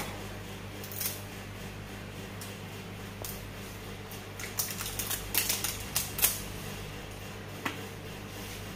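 Scattered sharp clicks and clacks of utensils handled at a steel rolled-ice-cream cold plate, bunched together about five to six seconds in, over a steady low hum.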